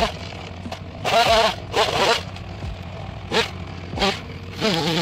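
A chainsaw cutting brush, revved in several short bursts and dropping back to a low steady idle between them.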